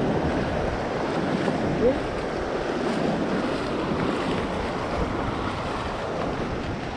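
Surf washing up the beach with wind buffeting the microphone: a steady rushing noise, with one short rising chirp about two seconds in.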